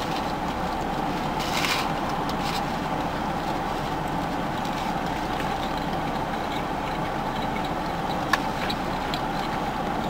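Steady background hum that runs unchanged throughout, with a brief scrape about a second and a half in and a single sharp click near the end.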